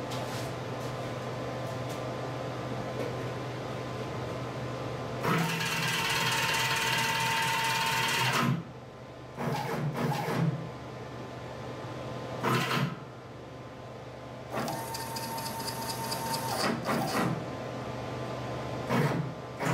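Stepper motors of a DIY CNC router whining as the gantry and spindle are jogged into position to set the zero point: one long run about five seconds in, then several shorter bursts, over a steady low hum.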